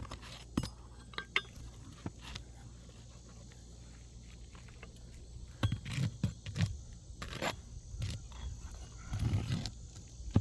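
Scattered metallic clinks, taps and scrapes of a roof hatchet and roof snake prying asphalt shingles and working roofing nails loose. There are clusters of duller knocks about six seconds in and again near the end.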